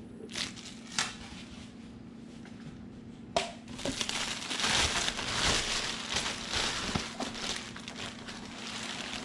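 Clear plastic bag crinkling and rustling as hands pull it around a boxed battery. It starts about three seconds in after two brief rustles and runs on steadily.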